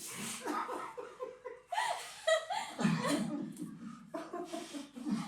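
People laughing and giggling in short, broken bursts, with a few murmured words.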